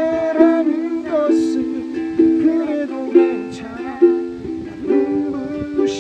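Ukulele strumming chords in a steady rhythm, with a voice singing a melody over it.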